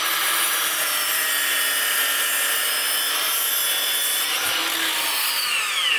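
DeWalt DCS781 60V cordless 12-inch sliding compound miter saw, fitted with a 60-tooth blade, cutting straight through a 2x12 board. The motor's high whine and the blade's cutting noise hold steady, then the whine starts to wind down near the end as the saw is released.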